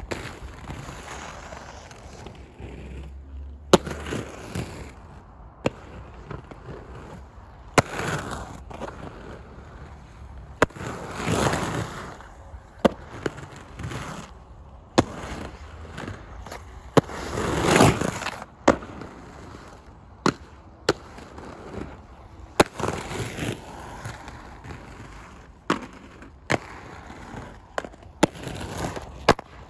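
Inline skate wheels rolling and rumbling over a concrete skatepark, broken by many sharp clacks of skates landing and striking the concrete every second or two, with two louder stretches of fast rolling.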